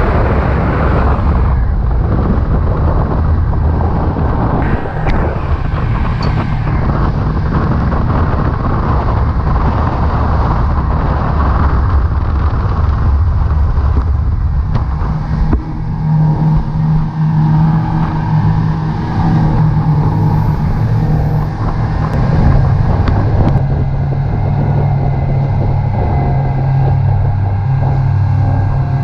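Power catamaran running at speed on the open sea: a steady engine drone under the rush of water and wind against the hull. About halfway through, the low engine hum becomes steadier and stands out more clearly.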